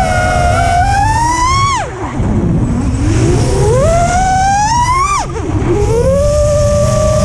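FPV racing quadcopter's brushless motors and propellers whining. The pitch climbs as the throttle is pushed, then drops sharply twice as the throttle is chopped, about two seconds in and about five seconds in, before settling back to a steady whine. A rough rumble of wind noise sits underneath.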